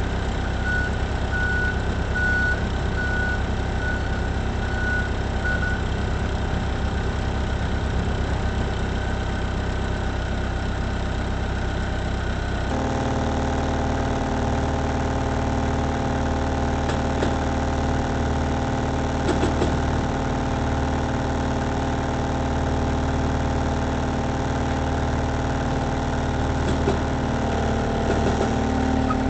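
Moffett truck-mounted forklift engine running steadily. Faint short beeps repeat about once or twice a second in the first few seconds. About 13 seconds in, the engine note shifts abruptly and settles into a steadier hum.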